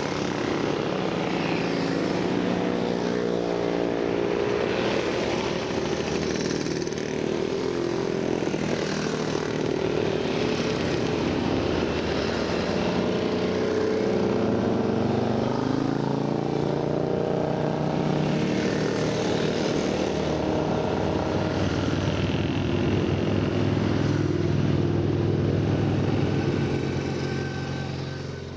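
A string of vintage motorcycles riding past one after another, several engines running at once, each rising and falling in pitch as it comes and goes. The sound fades out near the end.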